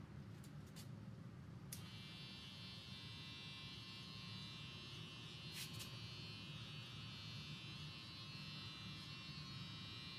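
Electric hair clippers switched on with a click a little under two seconds in, then buzzing steadily while trimming hair.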